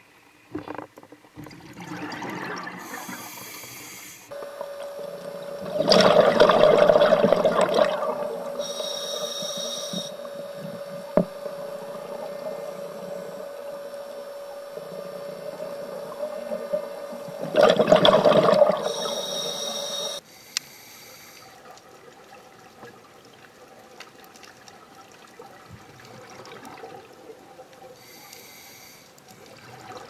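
Scuba diver breathing through a regulator, heard underwater: two loud rushes of exhaled bubbles about 6 and 18 seconds in, with shorter hissing inhalations between. A steady hum runs under the first two-thirds and cuts off suddenly.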